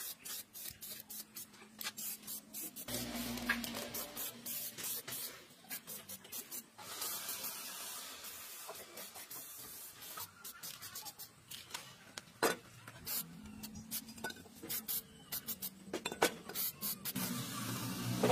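Aerosol spray paint can hissing in several bursts as green paint goes onto the grinding machine's parts, with scattered sharp clicks and knocks between the bursts.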